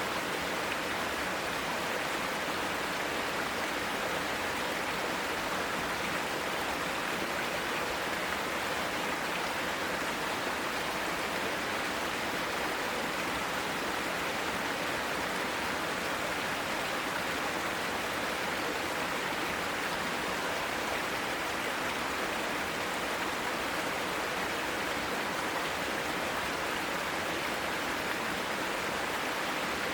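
Mountain stream flowing over rocks in a mossy gorge: a steady, even rush of water.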